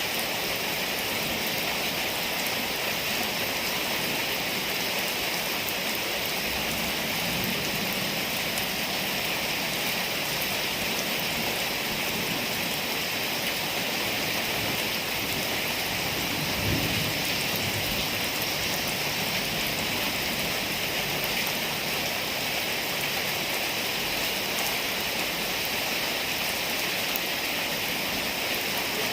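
Heavy rain pouring steadily, with one brief low thump a little past halfway through.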